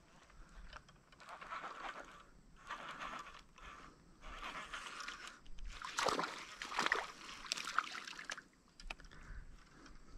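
Pond water sloshing in repeated bursts, like a wader's legs pushing through the shallows, then a louder splash at the surface about six seconds in.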